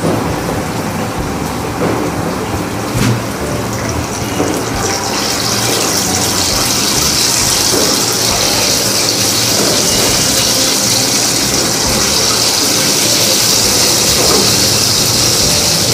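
Chicken deep-frying in the oil of an electric deep fryer: a steady sizzling hiss that swells and grows louder about five seconds in, with a few light knocks before it.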